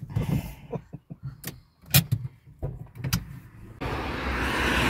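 A string of sharp clicks and knocks from handling inside a parked car, then from about four seconds in a steady rush of road traffic.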